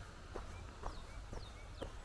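A hiker's footsteps at walking pace, about two steps a second, with a bird calling in short, high, falling chirps.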